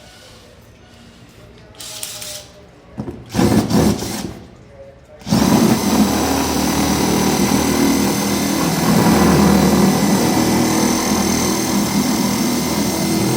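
Electric drill running: two short bursts, then a steady run of about nine seconds.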